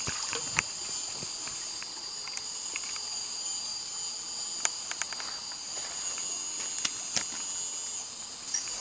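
Steady high-pitched drone of jungle insects, with a few sharp clicks and taps as the landed catfish flips on the pebbles of the stream bank.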